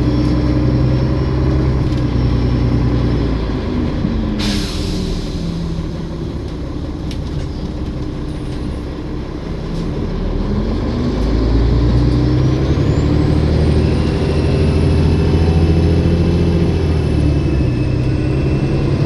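Olympian double-decker bus engine easing off as the bus slows, with a short air-brake hiss about four and a half seconds in. The engine then picks up and pulls away, with a high turbocharger whine that climbs and holds steady.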